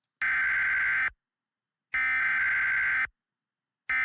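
Emergency Alert System SAME header tones: three identical bursts of buzzy digital warble, each about a second long with a second's gap between, the third still running at the end.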